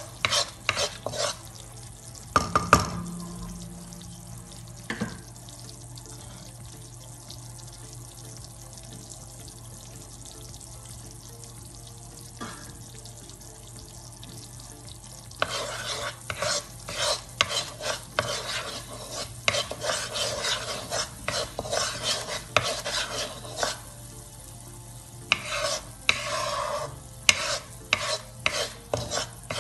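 Wooden spatula scraping and stirring tikhur (a starch) as it roasts in ghee in a kadhai, over a low frying sizzle. There is a knock about two and a half seconds in; the stirring then pauses for about ten seconds, leaving only the sizzle, and resumes in dense scraping strokes for most of the second half.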